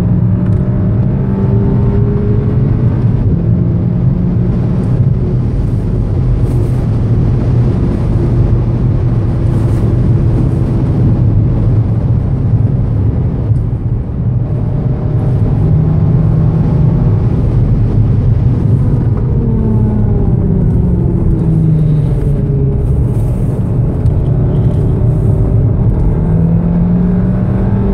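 Inside the cabin of a 2014 VW Golf VII R at speed: its turbocharged 2.0-litre four-cylinder pulls under full throttle, with a short dip about halfway through at an upshift. Later the engine note falls as the car slows and changes down, then rises again as it accelerates out of a corner, over steady tyre and wind noise.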